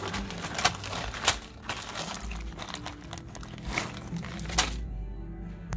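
Clear plastic ESD bag of removed electrolytic capacitors being handled and crinkled, with a few sharp clicks as the capacitors inside shift against each other. The crinkling stops near the end.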